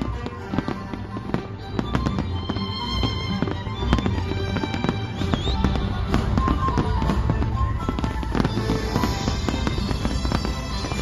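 Aerial fireworks display: a dense, continuous run of bangs and crackles from many shells bursting, with music playing along.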